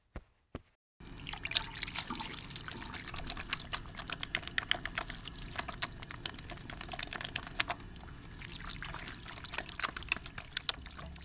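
Running water splashing steadily with a dense patter of small spatters, starting about a second in after a few short clicks.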